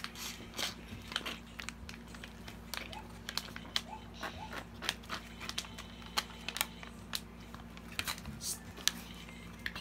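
Plastic snack-chip packet crinkling as a small child handles it and eats from it: irregular sharp crackles, some close together, none regular.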